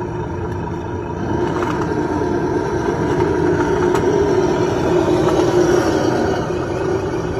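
Drivetrain of an RC Cen Ford F-450 plow truck running steadily, with a wavering whine that grows louder about a second in.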